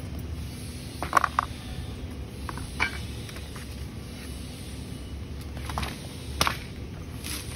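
A few sharp metallic clinks and knocks from the steel-tube frame of a swing-chair seat being handled and set down. The loudest is a quick cluster of three about a second in, with single knocks near three seconds and around six seconds, over a steady low rumble.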